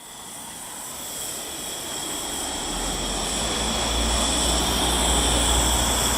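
Steam rushing out of a coal- and wood-fired steam boiler, a jet-like hiss with steady high tones that builds gradually louder. A low rumble joins it about halfway through.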